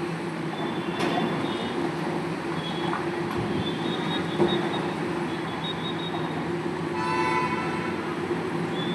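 Sany drilling rig running steadily, with intermittent thin high squeals and a brief horn-like tone about seven seconds in.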